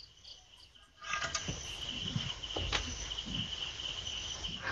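Crickets chirping steadily at night, heard through a security camera's microphone with background hiss. About a second in, the sound gets louder and noisier, with a few short knocks.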